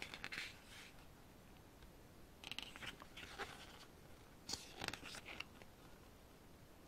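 Glossy photobook pages being turned by hand: faint paper rustling in three short bursts, near the start, about two and a half seconds in, and about four and a half seconds in.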